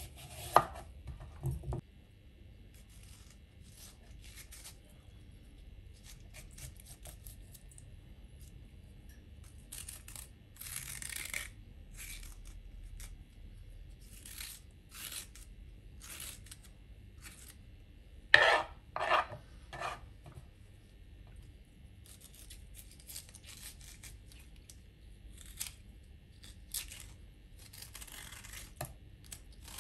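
Metal spoon scraping the seeds out of halved cucumbers on a plastic chopping board, in repeated short scratchy strokes. A few sharp knife knocks on the board come in the first two seconds, and a louder run of three or four strokes comes about 18 seconds in.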